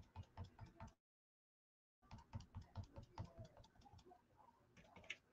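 Makeup sponge pouncing paint through a plastic stencil onto a wooden board: faint rapid dabbing taps, about five a second. The sound cuts out completely for about a second, about a second in.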